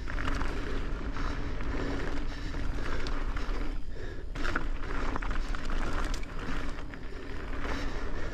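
Mountain bike rolling fast down a dirt singletrack: steady tyre and rolling noise with frequent knocks and rattles as the bike goes over bumps.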